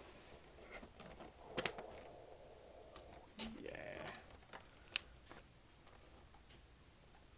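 Funko Pop cardboard box and plastic packaging being handled and opened: rustling, a few sharp clicks and a short rising scrape about three and a half seconds in.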